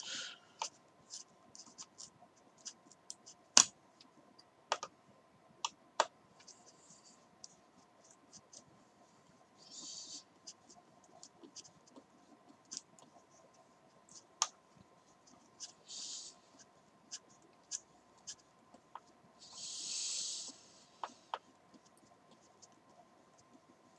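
Hex driver turning an M3 screw into the graphite front shock tower of an RC buggy: faint scattered clicks and ticks of the tool and parts, with three short scratchy rasps, the longest near the end.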